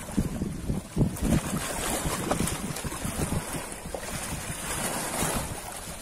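Ocean surf: waves washing on the shore, their hiss swelling about a second and a half in and easing near the end, with wind buffeting the microphone.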